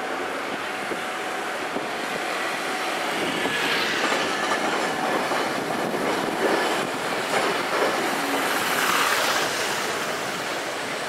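Iyotetsu streetcar rolling past on street track, its wheels clattering over the rails with some squeal. The rumble grows louder about three seconds in as the car draws close, mixed with passing road traffic.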